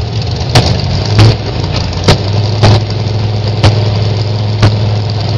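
Dragster engine idling with a steady low rumble, broken by six sharp, loud cracks about a second apart.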